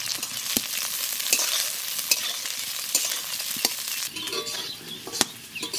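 Sliced onions sizzling in hot oil in an iron kadai while being stirred, with a handful of sharp clicks as the utensil knocks against the pan.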